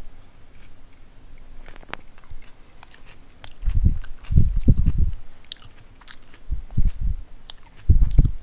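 A person chewing a big mouthful of footlong sub sandwich close to the microphone, with wet mouth clicks and smacks. From about halfway through come groups of heavy low chewing thuds.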